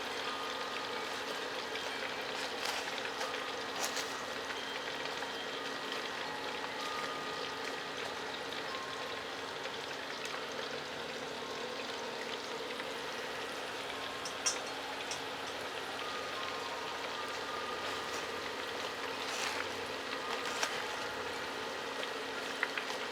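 Batch of chicken pieces deep-frying in hot oil at about 350 degrees: a steady sizzle, with a few light clicks and taps scattered through it.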